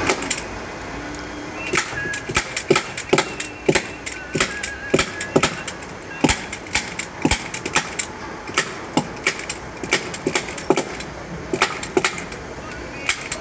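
Upholstery staple gun firing staples into a sofa's wooden frame, fastening the fabric cover: a sharp click with each shot, fired repeatedly at an uneven pace of about two or three a second.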